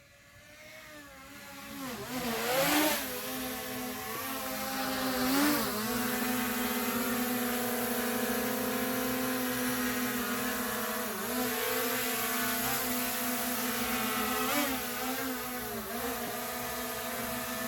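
DJI Mini 4 Pro quadcopter's propellers spinning up into a steady high buzz, with a few brief wobbles and dips in pitch as the motors change speed.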